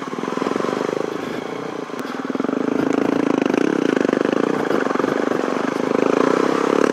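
Suzuki DRZ400E single-cylinder four-stroke dirt bike engine running under throttle on a trail, getting louder about two seconds in.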